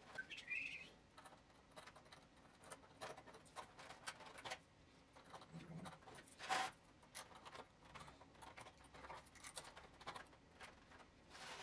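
Faint, scattered clicks and scratches of die-cut 3D puzzle pieces being handled and pressed into a stadium model, with one louder click a little past halfway.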